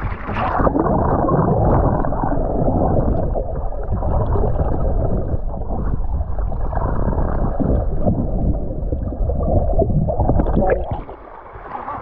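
Muffled rushing and bubbling of seawater heard through a camera held underwater while a swimmer dives beneath a sailboat's stern. Near the end the camera breaks the surface with a short splash, and the sound opens up into open air.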